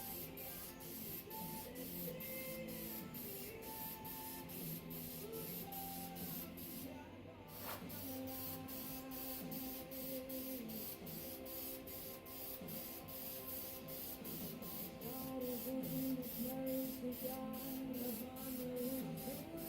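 Instrumental background music: a melody over a steady high, hissing beat of about two to three pulses a second.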